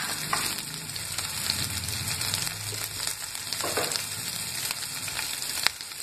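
Cumin seeds, chopped green chilli and nigella seeds sizzling in hot oil in a pan: a steady frying hiss with a sharp click near the end.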